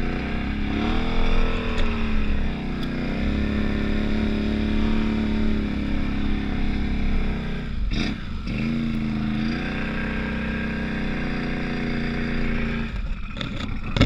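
Can-Am Outlander 850 XMR ATV's V-twin engine running under load while plowing through deep snow. It revs up and down several times, with a brief dip about eight seconds in, and eases off near the end.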